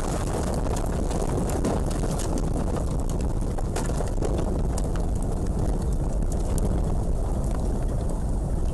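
Strong storm wind rushing over the microphone, a steady loud rumble with scattered sharp ticks.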